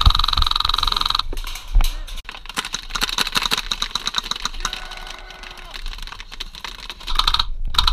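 Airsoft rifles firing in full-auto bursts of rapid clicking shots. A dense burst of about a second opens it, scattered shots follow in the middle, and another short burst comes near the end.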